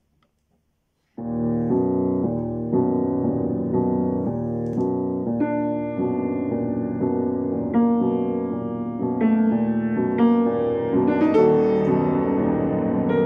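Piano played with both hands, starting about a second in with evenly repeated chords, about two a second; from about five seconds on, higher notes join and the playing grows fuller.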